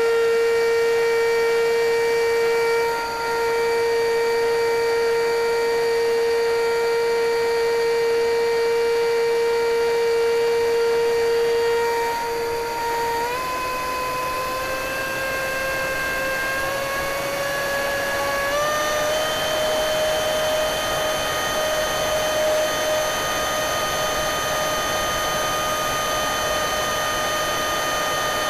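Electric ducted fan of a foam RC F-16D model jet, heard from its onboard cockpit camera in flight, whining steadily over a rush of air. Its pitch steps up about thirteen seconds in and again near nineteen seconds as the motor speeds up.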